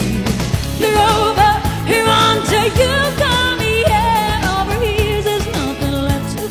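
A woman singing a pop song with vibrato over a backing track.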